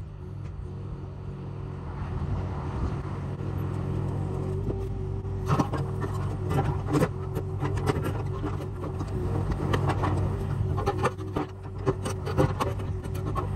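Case CX37C mini excavator's engine running steadily under load, with a series of sharp knocks and scrapes from about five seconds in as rock is handled.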